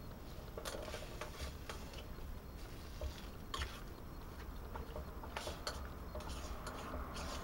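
Titanium spork stirring beans and bacon in a metal cookpot: irregular light clicks and scrapes of metal on metal, over a faint steady hiss.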